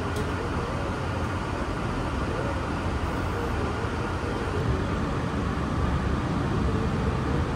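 Steady low rumble of a vehicle in motion, heard from inside it, with a faint steady hum.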